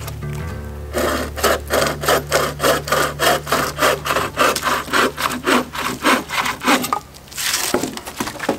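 Hand saw cutting through wood in quick, even back-and-forth strokes, about four a second, pausing briefly near the end before a last short stroke.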